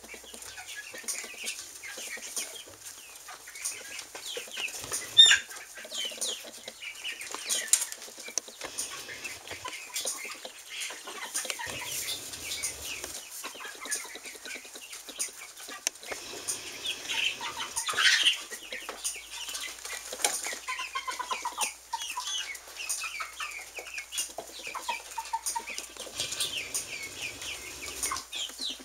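A small flock of young chickens chirping and clucking, with frequent sharp clicks and rustles. Louder single calls come about five seconds in and again about eighteen seconds in.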